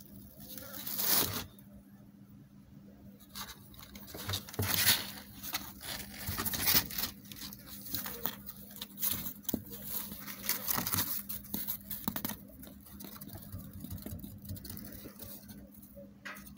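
Kittens' paws scrabbling and scratching on cardboard boxes, with crinkling of the cardboard as they scamper about. The sounds come in irregular bursts, busiest in the middle.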